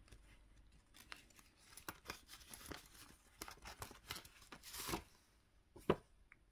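Plastic binder envelopes and paper banknotes rustling and crinkling as they are leafed through by hand, with scattered soft clicks and one sharper click near the end.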